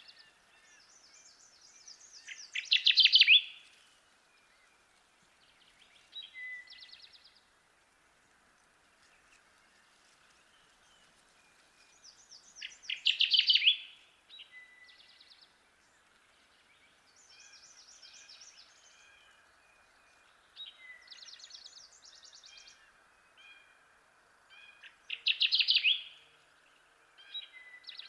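Kirtland's warbler singing its loud, rapid chattering song three times, about every eleven seconds. Fainter bird song phrases come in between, over a steady background hiss.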